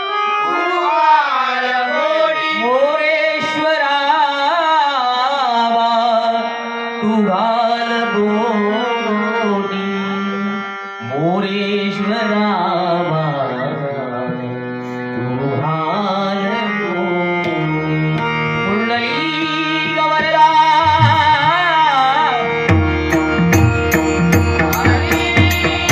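Male bhajan singer singing a Marathi devotional prayer (prarthana) in a high voice, with a long, ornamented, sliding melody over steady held instrumental notes. A hand drum comes in near the end with a steady beat.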